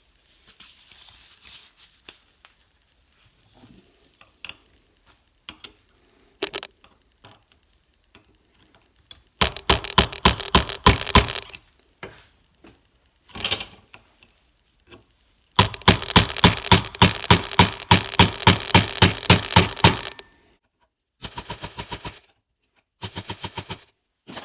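Hammer driving a brass punch against the ball cage and races of a Subaru CV joint to knock the ball bearings loose, in rapid, evenly spaced metallic strikes. There are two long runs of blows and two short ones near the end, with quieter clinks of handling before them.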